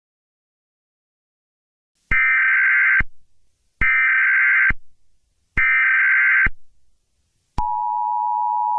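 Emergency Alert System tones: after about two seconds of silence, three short data bursts of under a second each, evenly spaced, then the steady two-pitch EAS attention tone starting near the end.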